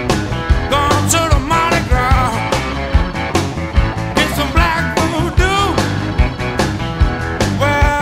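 Background rock song with a steady drum beat and pitched lead lines, playing without a break.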